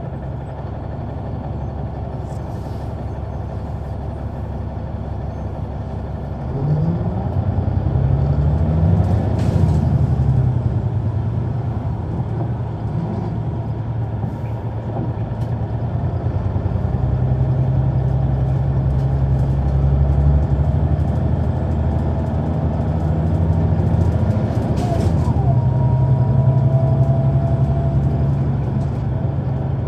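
Caterpillar C9 ACERT diesel engine of a Neoplan AN459 articulated bus, heard on board: it runs low and steady, then about seven seconds in it picks up with rising pitch and steps through the shifts of its ZF automatic transmission before settling into a steady drone. Two short hisses come near ten seconds and near twenty-five seconds, and a thin whine joins near the end.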